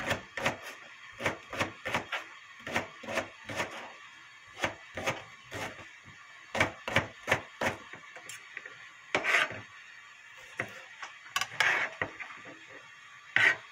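Kitchen knife slicing green onion on a plastic cutting board: quick runs of chopping knocks, about two or three a second, broken by short pauses, with a few longer, louder strokes in the second half.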